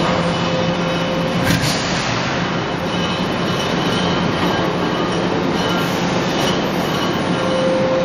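Sheet-steel coil processing line running: steady machinery noise of rollers feeding steel sheet, over a constant hum, with a single sharp clank about a second and a half in.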